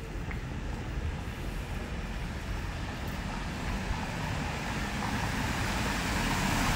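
Road traffic noise from passing cars, with a vehicle drawing closer and growing louder toward the end.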